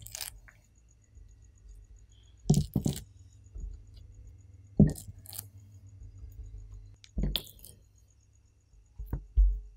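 Raw pork loin slices being lifted off a ceramic plate and laid down on a wooden cutting board: about half a dozen short soft knocks and clinks, one to two seconds apart.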